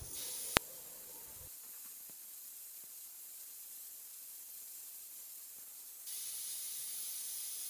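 Shallots, garlic, dried red chillies and curry leaves sizzling in oil in an aluminium kadai as they are stirred and sautéed, with a single click about half a second in. The sizzle gets louder about six seconds in.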